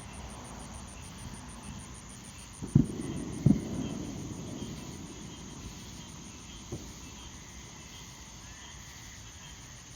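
Crickets chirping in a steady, rapid high pulse on a summer night. Two sharp thumps come about three seconds in, half a second apart, then a fainter one near seven seconds.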